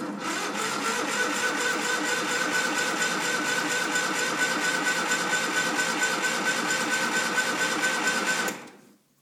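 Old Cub Cadet tractor's starter cranking the engine with a steady rhythmic churn for about eight and a half seconds, then stopping without the engine catching: a cold start after long sitting that fails to fire.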